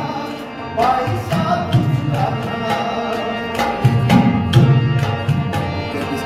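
Background music: a rhythm of low hand-drum strokes under a wavering melodic line.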